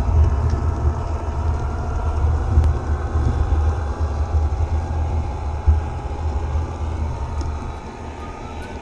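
G-scale garden railway snowplow train running along the track and pushing through snow, heard from a camera riding on it: a steady, fluttering rumble with a fainter motor whirr above it, easing off slightly near the end.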